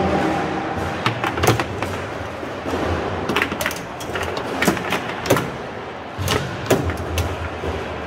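Foosball rally on a tournament table: sharp knocks and clacks as the ball is struck by the plastic players and rods bang against the table, about ten scattered hits over a background hall murmur.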